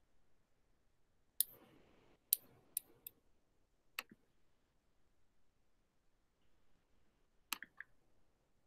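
Faint, scattered clicks from working at a computer: about seven short, sharp clicks at uneven intervals, four within the first few seconds and two close together near the end.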